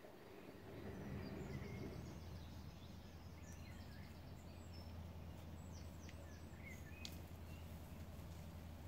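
Faint small-bird chirps and twitters over a low, steady rumble that grows louder about a second in.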